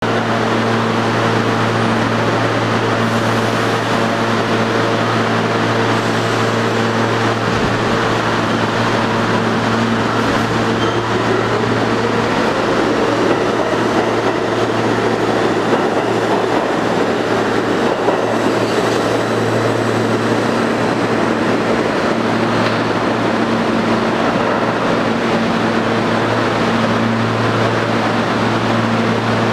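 R32 subway train pulling out of an underground station: a whine rises in pitch for a few seconds, starting about eight seconds in, as the train picks up speed past the platform, over the train's running noise and a steady low hum.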